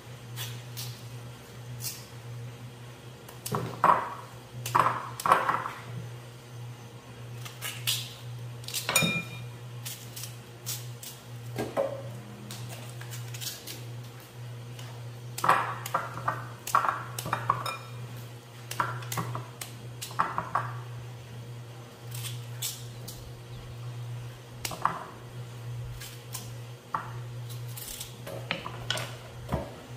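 Kitchen dishes and utensils knocking and clinking at irregular intervals as boiled cassava is peeled and handled, over a steady low hum.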